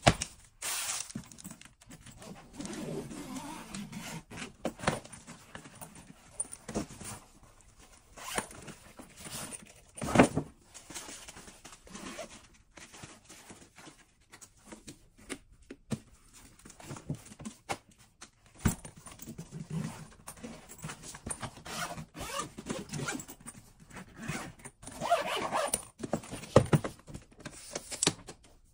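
Handling of a Tumi Merge fabric carry-on suitcase: zippers being run, rustling and scattered knocks and clicks of the case and its fittings as it is opened, turned and its telescoping handle raised.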